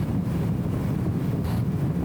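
Steady low rumble of a BMW E34 M5 Touring driving along, its engine and road noise muffled and smeared by the camera's anti-wind audio filter.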